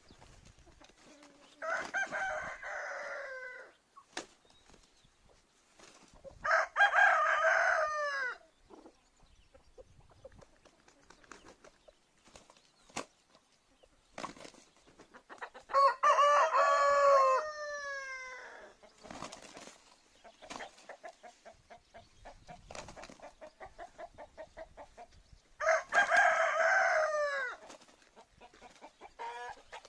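Rooster crowing four times, several seconds apart, each crow about two seconds long and dropping in pitch at the end.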